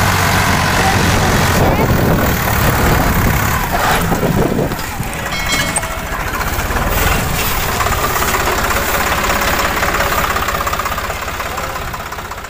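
Swaraj 744 FE tractor's three-cylinder diesel engine running under load as it pulls a trailer loaded with straw. The engine sound fades away near the end.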